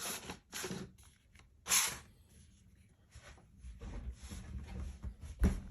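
Handling noise from an e-reader and its packaging being moved in the hands: a few short rustles and rubs, a low rumble, then a thump near the end.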